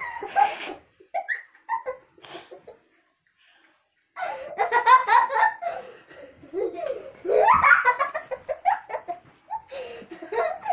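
Young children laughing and giggling. There are a few short bursts at first and a brief pause, then a long stretch of loud giggling from about four seconds in.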